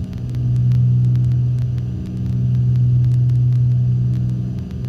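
The Cessna 310's twin six-cylinder piston engines and propellers drone steadily in the cockpit at cruise-climb power. The low hum swells and fades slowly, about every two seconds.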